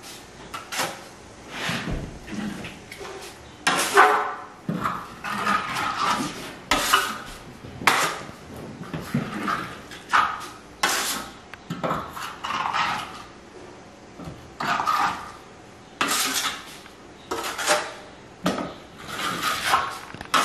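Steel plastering trowel scraping veneer plaster (diamond finish) off a hawk and spreading it onto the wall in short, repeated strokes, about one a second, with metallic scrapes and light clinks.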